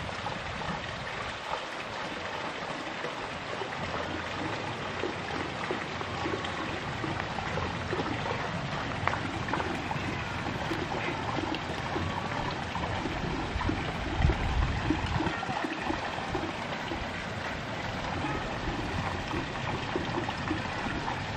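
Steady rushing noise of running water, with a brief low thump about fourteen seconds in.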